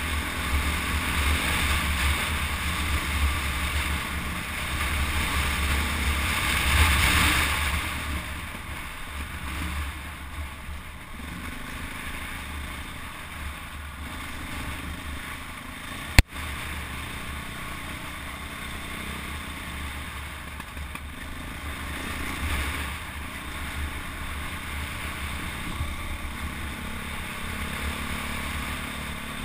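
KTM 400 EXC four-stroke single-cylinder dirt bike engine running on the move, with wind rumble on the microphone; louder for the first seven seconds or so, then easing off. A single sharp click about sixteen seconds in.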